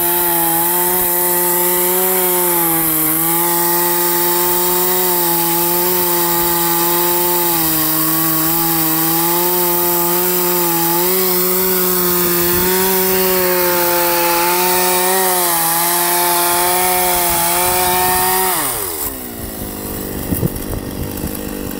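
Kawashima two-stroke chainsaw held at full throttle while cutting through a thick log, its pitch steady with small dips as the chain bites. After about eighteen seconds the throttle is released and the engine winds down to idle.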